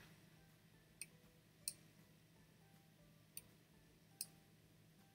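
Near silence: low room hum with four faint, sharp clicks spread through it.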